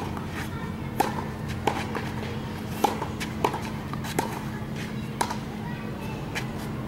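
Tennis rackets striking a ball in a baseline rally on a clay court: six sharp pops, one to one and a half seconds apart, that stop about five seconds in.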